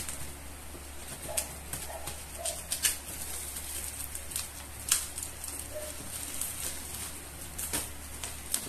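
A plastic bag crinkling and crackling in irregular sharp snaps as it is torn and pulled off a shoe box, over a steady low hum.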